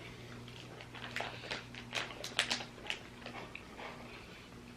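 Scattered soft clicks and wet smacks over a low hum: mouth sounds of someone chewing a squishy gummy candy, with a cluster of clicks between about one and three seconds in.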